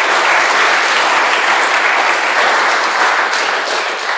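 Audience applauding at the end of a talk, a dense, steady clapping that eases slightly near the end.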